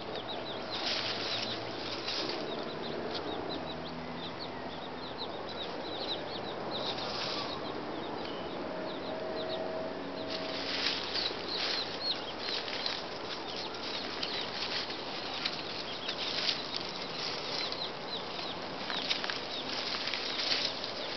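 Small birds chirping and peeping in quick, high calls, sparse at first and coming thick and fast in the second half, mixed with short bursts of rustling.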